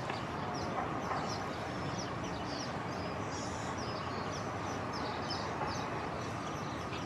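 Small birds chirping in many quick, high, downward-sliding notes, over a steady wash of outdoor noise such as traffic or wind.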